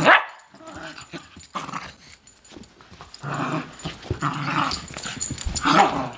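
Beagle puppy vocalising in play while mouthing and wrestling with a man's hands, in a few short bursts, the loudest about three seconds in and just before the end.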